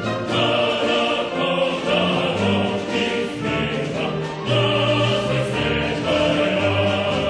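Background music with singing in long held notes, in a classical or choral style.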